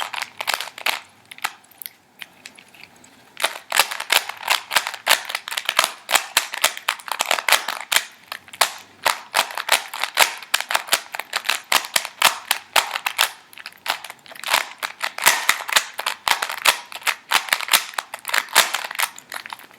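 Rubik's Cube faces being turned rapidly by hand: a fast, continuous run of plastic clicks and clacks, with a brief pause about two seconds in. These are the final turns of a solve.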